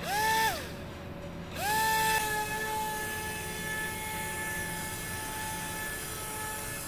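Small 3.7 V coreless DC motor spinning a tiny quadcopter propeller on a DIY toy car: it whines up briefly and spins down, then starts again about a second and a half in and keeps up a steady high whine as it drives the car along.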